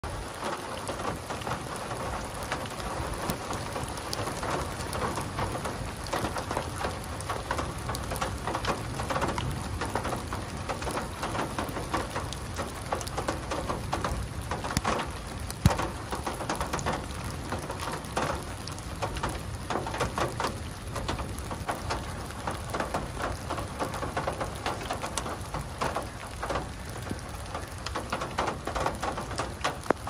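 Steady rain falling, with close drops ticking all through and one sharper tick about halfway through.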